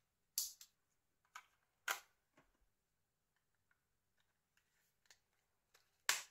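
Small sharp plastic clicks and taps from handling a Nokia 6070 mobile phone: a few distinct clicks about half a second, a second and a half, two seconds and six seconds in, with faint ticks between.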